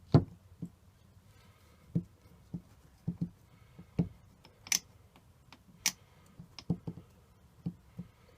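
Irregular clicks and knocks of the metal parts of a Lewmar 34 self-tailing winch being handled and fitted back together as a part is worked into place.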